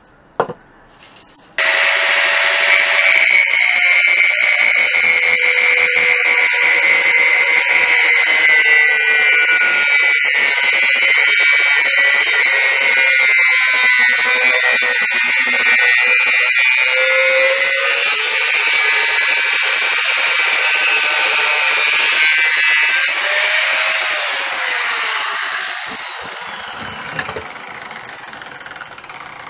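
Electric angle grinder grinding steel square-tube frame: a loud, steady high whine that starts suddenly about two seconds in. It winds down with a falling pitch after about twenty-three seconds, once the grinder is switched off.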